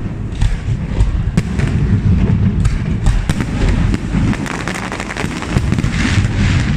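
Fireworks display going off continuously: rapid, overlapping booms and bangs over a rolling low rumble, with a stretch of crackling about five seconds in.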